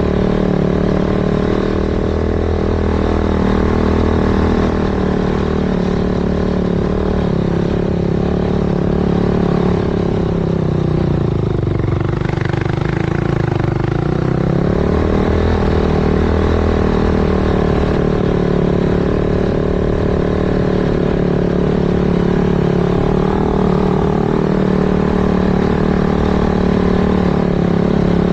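Yamaha YFZ450 quad with a 501cc big-bore build and sport exhaust, its single-cylinder four-stroke engine running hard under load in soft sand. The revs dip about halfway through, then climb back to a steady pull.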